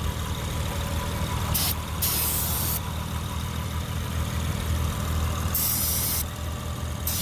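Car engine idling steadily while brake cleaner is sprayed around it in several short hissing bursts, the way a mechanic checks for a vacuum leak: a change in idle where the spray lands would point to the leak.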